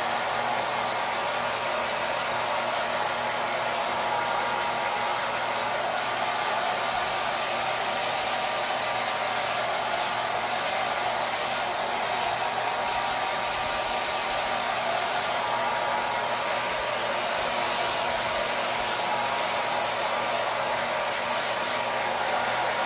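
Small handheld hair dryer running steadily on high, a constant rush of air with a faint motor whine, drying wet paint.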